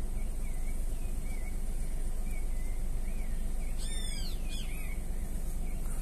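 Birds calling: short chirps repeat every half second or so, and about four seconds in a louder, harsher call of a few arched notes rings out, over a steady low rumble.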